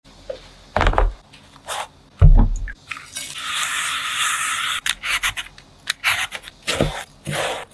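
Two dull thumps, then a peach rubbed hard between the hands with a white powder in a steady scrubbing noise, then a vegetable peeler scraping the peach's skin off in a quick run of short strokes.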